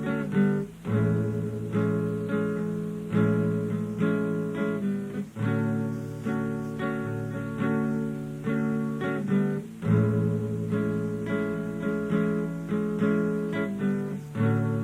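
Background music: strummed and plucked acoustic guitar, instrumental with no singing.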